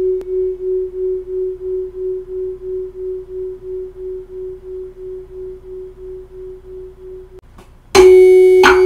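Two tuning forks on wooden resonance boxes, one wrapped in enamel wire so that it sounds about 3 Hz lower, ringing together: their single tone swells and fades about three times a second, the beats of the two slightly different frequencies, and slowly dies away. Near the end the forks are struck twice with a rubber mallet and the beating tone comes back loud.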